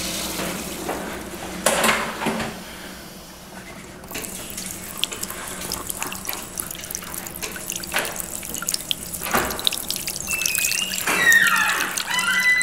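Tap water running into a washbasin with splashing as hands are washed under it, starting a few seconds in, with a few high squeaks near the end.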